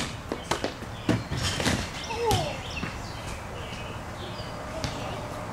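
A basketball thudding a few times on a stone patio in the first second or so, then a short voice calling out.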